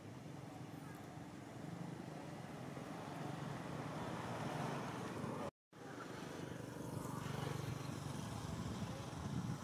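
Steady outdoor background rumble with no distinct event, broken by a brief dropout to silence a little past halfway.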